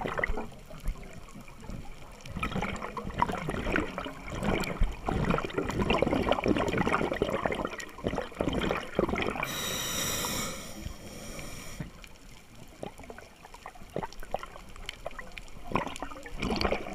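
Scuba breathing underwater: a long stretch of bubbling and crackling as exhaled air streams out of a regulator, then a hiss of an inhale through the regulator about ten seconds in, and more bubbling near the end.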